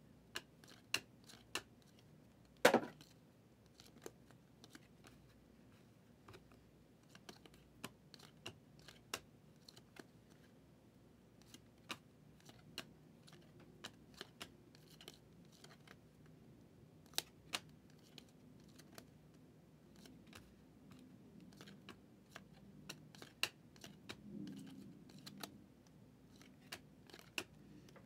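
Faint, irregular clicks and slides of stiff 2023 Phoenix football trading cards being flipped through one at a time in the hands, with one louder click a little under three seconds in.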